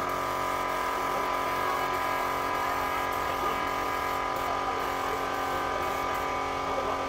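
Compressed-air spray painting: a motor hums steadily, most likely the air compressor feeding the gravity-feed spray gun, under the hiss of the gun spraying wood finish.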